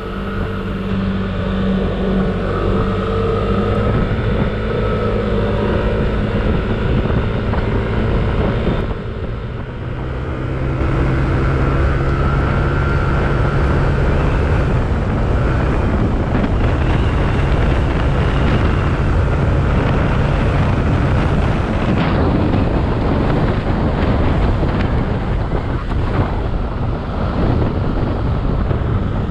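Yamaha Aerox scooter's single-cylinder engine running at road speed, with wind rushing over the microphone. The sound dips briefly about nine seconds in, then the wind noise grows louder as the scooter picks up speed.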